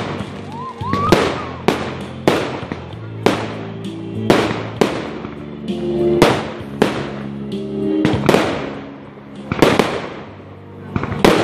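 Aerial fireworks bursting one after another, sharp bangs at roughly one and a half a second, over music with steady sustained notes.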